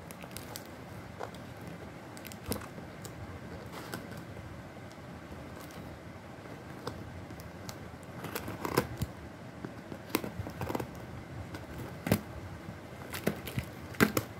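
Scissors snipping and scraping through a paper shipping label and parcel wrapping, heard as scattered sharp clicks that get busier in the second half. Near the end, the packaging crinkles as it is pulled open.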